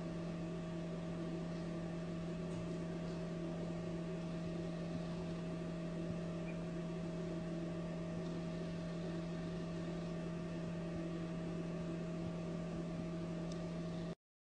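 A steady hum made of a few constant tones that never change. It cuts off abruptly near the end.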